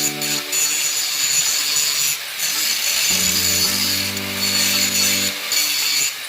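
Power grinder grinding metal on a Ford 8.8 rear axle housing, a steady high hiss and whine with brief breaks, while background music with held bass notes plays over it.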